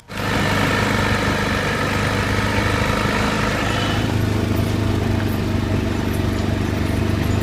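A vehicle's engine running at a steady pitch while it drives along a track, heard from its open load bed with road noise.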